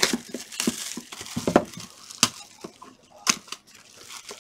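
Clear plastic shrink wrap crinkling and tearing as it is stripped off a trading-card hobby box, with a handful of sharp clicks and crackles.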